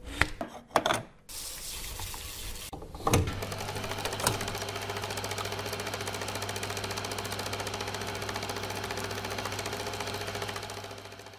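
Film projector: a few sharp clicks as a film reel is fitted onto its spindle, then the projector runs with a fast, even clatter over a low hum that fades out near the end.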